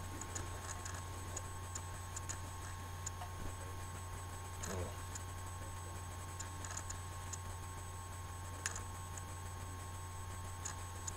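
Steady low hum with scattered faint light clicks and ticks, a brief murmur about five seconds in, and one sharper click near the nine-second mark.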